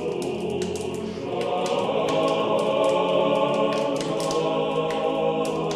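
Closing theme music with a choir singing long held chords that swell a little about a second and a half in, with sharp crackling clicks scattered throughout.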